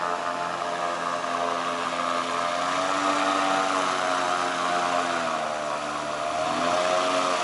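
Airboat's engine and propeller droning across the water, a steady pitched drone whose pitch slowly rises and falls, with a dip near the end.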